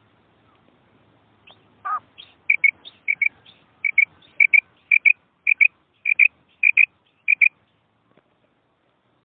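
Female quail calling: a lower slurred note, then a run of short, sharp high notes in quick pairs, about one pair every half second or so.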